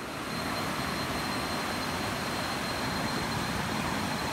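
Steady rushing water of a waterfall or stream, with a faint steady high-pitched tone running through it.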